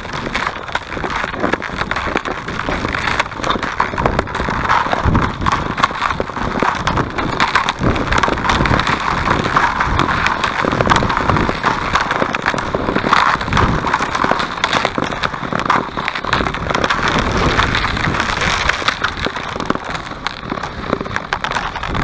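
Thin, clear lake ice crackling under load: a dense, continuous run of sharp clicks and snaps that swells and eases without stopping.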